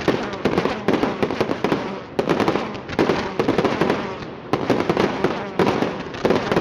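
Fireworks display: dense volleys of bangs and crackles, many shots overlapping, coming in clusters every second or so.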